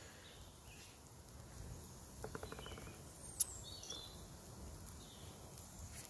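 Faint woodland ambience around a small wood campfire: a quick run of ticks a little over two seconds in, one sharp crack about three and a half seconds in, and a few faint bird chirps.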